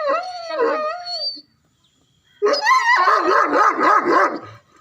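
Pakistani bully dog whining in a few rising-and-falling calls, then, after a short pause, breaking into a quick run of high yelping barks, several a second.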